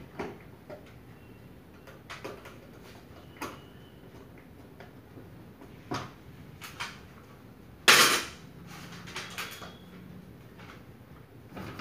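Scattered light clicks and knocks of hands and tools on the plastic parts of a ceiling-cassette air-conditioner indoor unit being serviced, with one much louder knock about eight seconds in.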